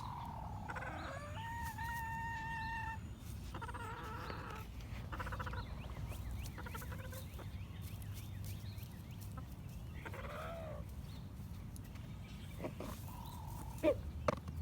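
Chickens calling: one drawn-out, held call about a second in, then shorter clucking calls and a wavering call later on. A few sharp clicks come near the end.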